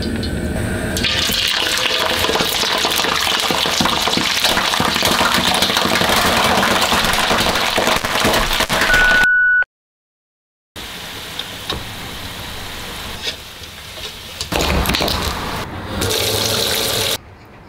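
Chicken feet deep-frying in a wok of hot oil, a loud, dense sizzle and crackle for about eight seconds. After a short break, tap water runs steadily onto the fried chicken feet in a steel bowl.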